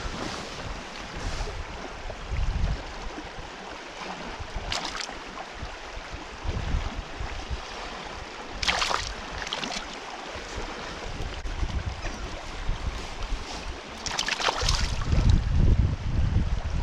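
River water rushing past, with wind buffeting the microphone in gusts, strongest near the end, and three brief hissing swishes.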